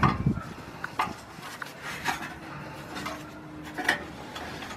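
Spring-loaded exhaust flange bolt being pushed in and started by hand at the muffler joint: a few scattered metallic clicks and light scraping as the bolt, spring and flange are handled.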